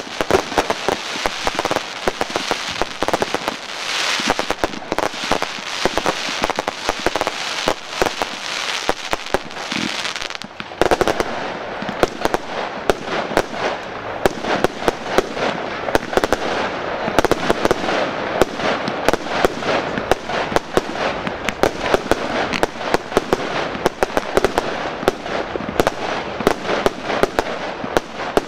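Fireworks going off: a dense, continuous crackle of many sharp pops and small bursts. About ten seconds in the sound changes to a fuller, lower stream of pops as another item starts firing shots into the sky.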